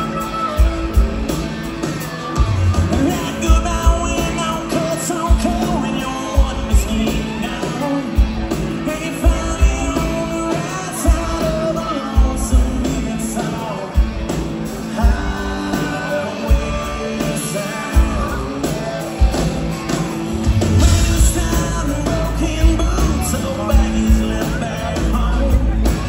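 Country-rock band playing live: electric guitars, bass and drums keeping a steady beat, with a man singing lead.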